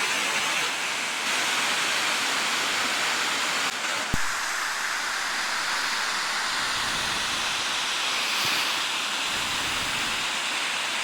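Waterfall rushing steadily, an even hiss of falling water with no change in level; one brief knock about four seconds in.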